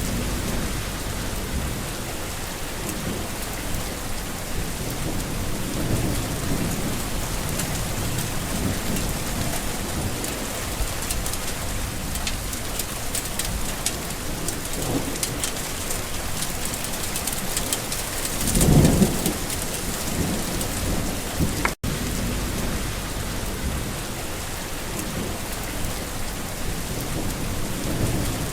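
Steady rain falling, with a low rumble of thunder swelling and fading about two-thirds of the way through, the loudest moment. The sound cuts out for an instant a few seconds later.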